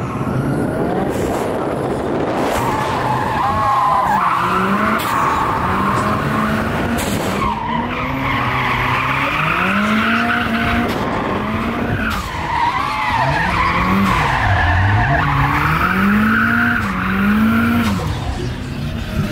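Nissan Silvia drift car's engine revving up and down over and over while drifting, with its tyres squealing.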